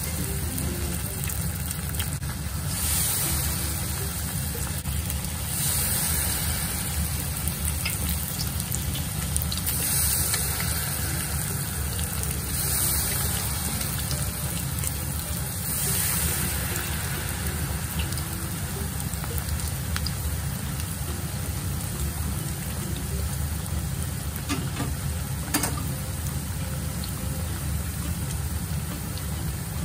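Battered vegetables deep-frying in hot oil, a steady crackling sizzle over a low, even hum.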